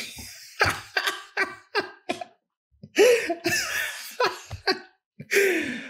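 A man laughing: runs of short, breathy bursts in three spells with brief pauses between them.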